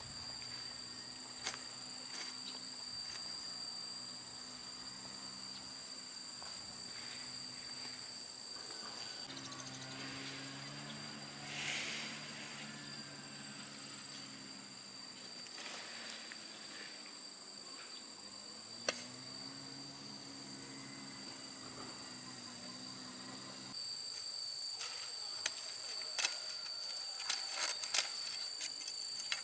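Insects trilling steadily at a high pitch, with a low pitched hum underneath that shifts in pitch a couple of times and stops about two-thirds of the way through. After that come scattered clicks and knocks.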